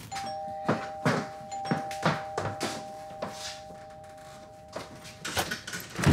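A two-tone doorbell rings, both tones held steadily for about five seconds, while footsteps approach the door. Near the end comes a loud clunk as the front door lock is worked.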